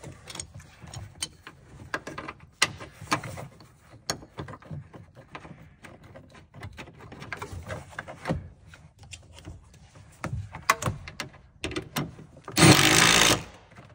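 Seat-belt hardware being handled and fitted in a car's interior trim: scattered clicks, rattles and knocks of metal and plastic parts. Near the end a cordless power tool runs for about a second, driving in a bolt at the belt mounting.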